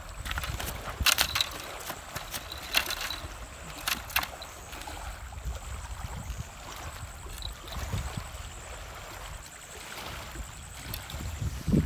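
Wind rumbling on the microphone, with a few sharp clicks and rustles about a second in, near three seconds and around four seconds.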